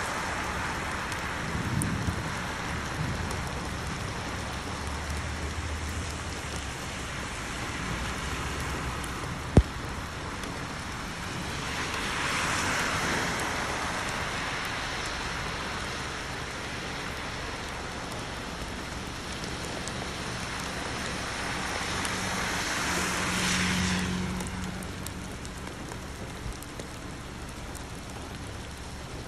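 Steady rain falling, a continuous hiss. Twice it swells louder for a couple of seconds, like a vehicle passing on the wet road, and a single sharp click sounds near ten seconds in.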